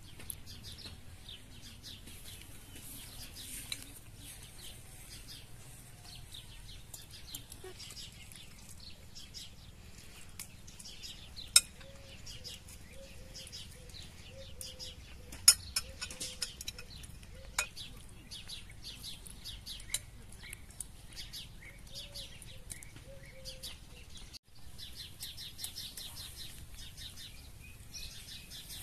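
Small birds chirping rapidly and continuously, with a few sharp clinks of metal spoons against china plates as people eat; the clinks are the loudest sounds, about a third and halfway through.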